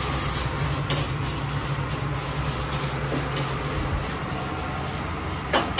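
Curry leaves dry-roasting in a non-stick kadai, stirred with a wooden spatula: a steady, even sizzle with soft scraping. A few sharp knocks come near the end.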